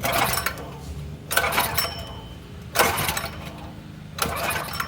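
Predator 212 single-cylinder four-stroke engine being pull-started, four pulls of the recoil starter about a second and a half apart, turning over without firing: the carburettor bowl is dry and no fuel is reaching it.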